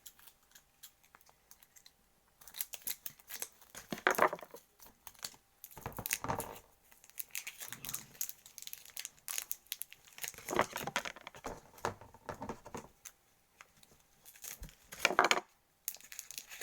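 Plastic packaging crinkling and tearing as packets of coloured chocolate are handled and opened, in irregular bursts with short pauses between.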